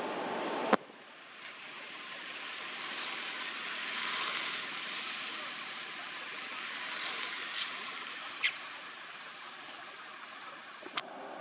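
Steady outdoor background hiss with no clear source, and a sharp click just under a second in, after which a lower rumble drops away. A few fainter short clicks follow later.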